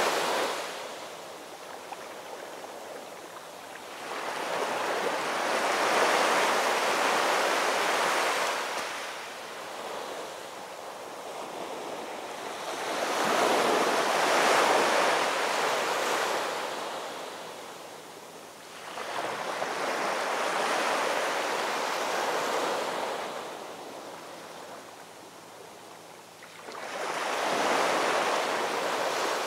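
Ocean surf: waves rolling in and washing back, the rushing noise swelling and fading about every seven seconds.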